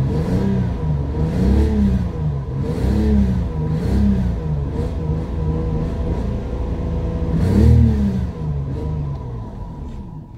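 Toyota 1G-FE 2.0-litre inline-six engine of a Mark II GX100 revved in a series of throttle blips, each pitch rising and falling back toward idle. The highest and loudest rev comes about three quarters of the way through, then it settles back to idle.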